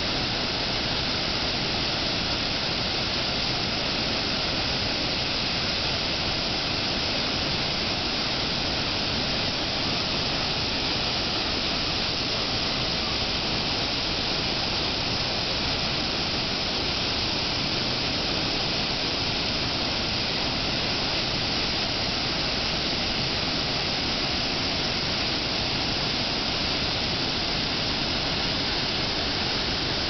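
River water rushing, a steady even hiss that does not change.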